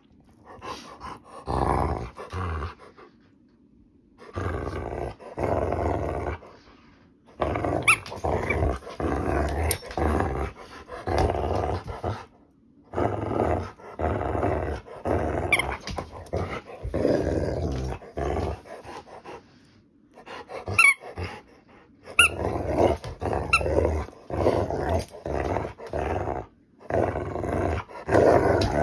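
Rottweiler growling in long rough bouts a few seconds each, broken by short pauses, as it tugs on a rubber Kong toy: play growling in a game of tug-of-war.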